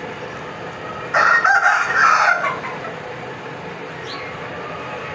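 A rooster crows once, about a second in, lasting about a second and a half, over a steady background hiss. A short high chirp follows near the end.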